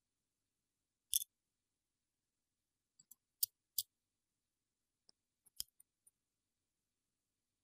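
Sharp metallic clicks of watchmaker's tweezers setting and tapping small parts into an Audemars Piguet watch movement. A loud double click comes about a second in, two loud clicks a third of a second apart come near the middle, and a few fainter ticks with one louder click follow.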